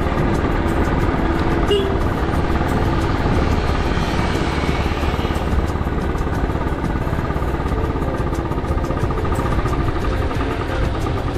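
Motorcycle being ridden, its engine running steadily at an even speed.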